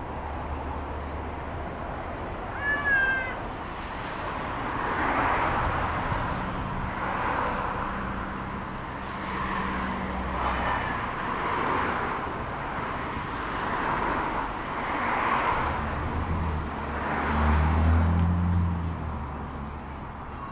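An animal calling over and over, about once every one and a half to two seconds, with a short higher-pitched call shortly before. A low rumble of passing traffic rises near the start and again near the end.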